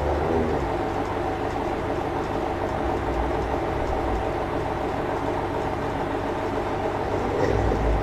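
A monkey snoring: low snores about every three and a half seconds over a steady hum.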